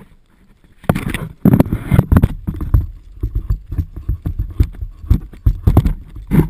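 A black Labrador jostling a GoPro camera up close: irregular knocks, scuffs and rattles of the camera housing against the dog, with its collar tags jingling, and a louder burst just before the end.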